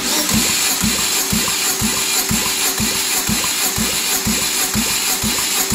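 Starter motor cranking a Ravon R2's 1.2-litre B12D2 four-cylinder engine during a cold compression test, a steady whine with regular thumps about twice a second. The cylinder under test reads about 9.5 kg/cm².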